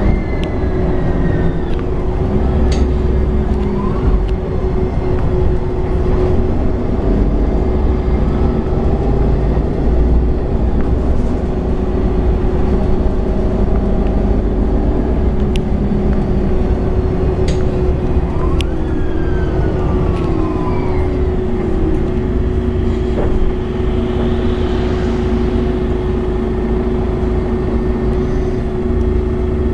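MAN Lion's City 12C city bus running under way: the low rumble of its MAN diesel engine with a steady hum, and drivetrain whines from the Voith automatic gearbox that rise and fall in pitch near the start and again about two-thirds of the way through as the bus pulls away and changes speed.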